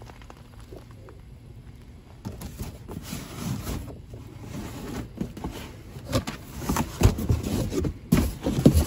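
Cardboard boxes and plastic bags being shifted and rummaged inside a dumpster, with rustling and scraping. Sharp knocks and thuds come in the last few seconds, the loudest about seven seconds in and just before the end.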